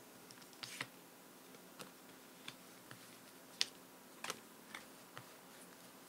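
Faint, uneven light clicks and taps of tarot cards being handled on a tabletop, about nine over six seconds, the sharpest about three and a half seconds in.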